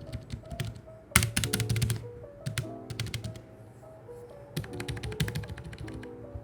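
Rapid typing on a Keychron K3 V2 low-profile mechanical keyboard with brown tactile switches: quick runs of key clicks, the loudest flurry about a second in and another after four and a half seconds, over lofi background music.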